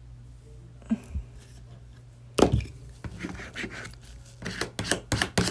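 Plastic cutting mats being handled: a sharp knock about two seconds in, then a quick run of short strokes, several a second, near the end, over a low steady hum.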